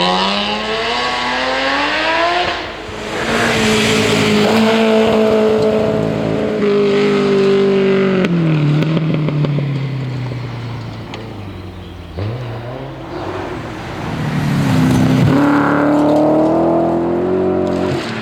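Rally car engine at full throttle. The revs climb and break for a gear change, hold high, then fall away from about eight seconds in as the car passes and goes off. Near the end the revs climb again.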